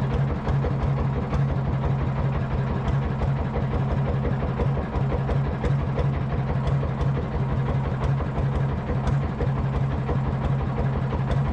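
Boat engine running steadily, a constant low hum with a fast, even pulse.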